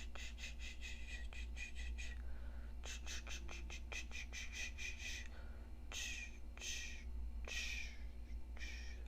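Eyebrow razor scraping along the tail of the brow in quick short strokes, about seven a second, in two runs. Then come slower, longer single strokes, spaced under a second apart.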